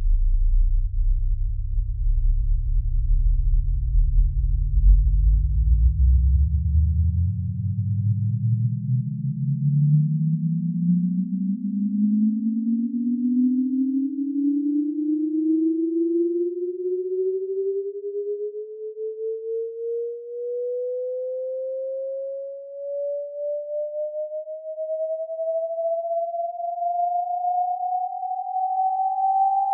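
Synthesized electronic tones: a low, fluttering cluster of several pitches that draw together into one pure tone about a third of the way in, which then glides slowly and steadily upward in pitch. Its loudness wavers briefly a little past the middle.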